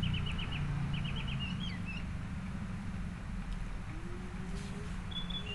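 A small bird chirping, two quick runs of four or five short rising notes in the first second and a half, then a few single calls, over a low steady hum.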